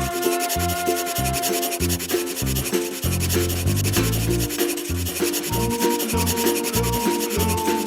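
A drawing tool, likely a colouring pen or crayon, rubbing on paper in quick, even back-and-forth strokes, over background music with a bass line and a simple melody.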